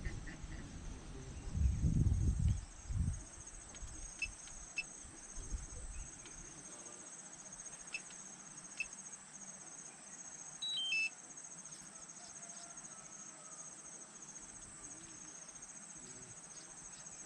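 Steady, finely pulsing high-pitched trill of crickets or similar insects. Low rumbles in the first few seconds and a short stepped chirp about two-thirds of the way through.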